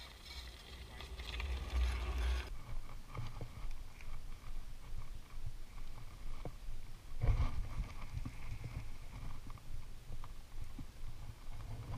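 Side-by-side utility vehicle approaching on a gravel track, its engine and tyre noise growing louder, then cutting off abruptly. After that come scattered light clicks and knocks from handling a baitcasting rod and reel, with a louder low rumble for about a second near the middle.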